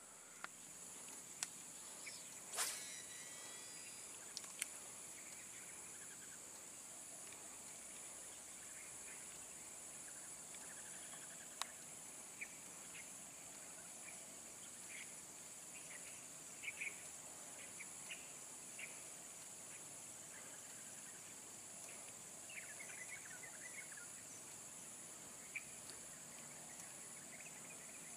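Faint, steady high-pitched insect chorus with a few short chirps scattered through it. A single sharp click about two and a half seconds in.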